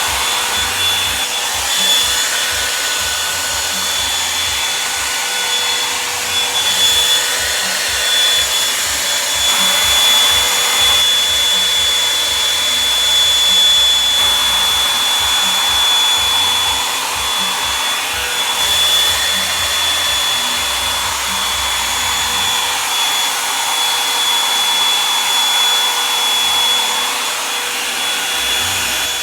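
Revlon One-Step hair dryer brush blowing hot air: a steady rushing hiss with a thin high whine, rising and falling slightly in loudness as it is worked through the hair.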